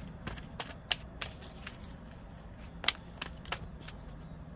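Oracle cards being handled and shuffled in the hand: a series of light, irregular card clicks and snaps, the sharpest about a second in and again near three seconds.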